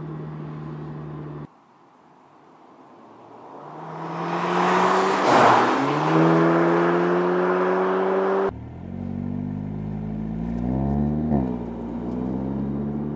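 Volkswagen Golf R's turbocharged 2.0-litre four-cylinder engine in cut-together shots. It runs steadily, then after a cut it comes up loud and passes by at speed with a drop in pitch, its engine note climbing as it pulls away. After another cut it runs at lower revs with a quick dip and rise in revs about 11 seconds in.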